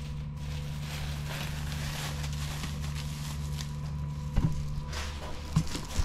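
Steady machinery hum of dairy milk-house equipment, with a few knocks or footsteps in the last second and a half.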